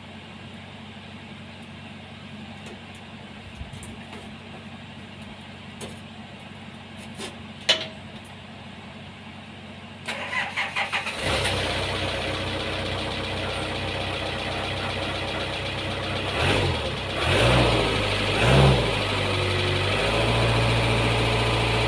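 Komatsu PC50 mini excavator's diesel engine cranked by the starter for about a second, about ten seconds in, then catching and running, with three brief revs before it settles at a steady, slightly higher speed. It is the engine's first start after standing unused for months.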